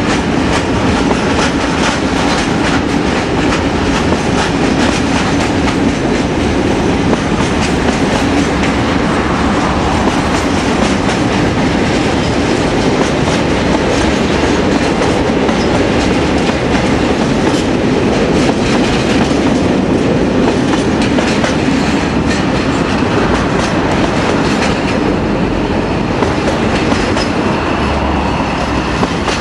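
Freight train wagons rolling past at speed, a steady rumble with rapid clickety-clack of wheels over rail joints and points. It begins to thin near the end as the last wagon goes by.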